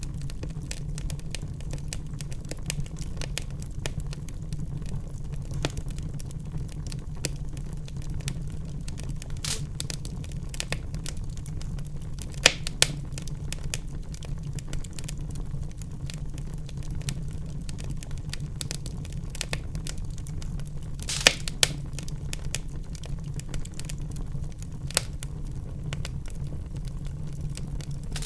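Wood fire in a fireplace crackling: a steady low rumble of flames under constant small crackles, with a few louder pops about 12 and 21 seconds in.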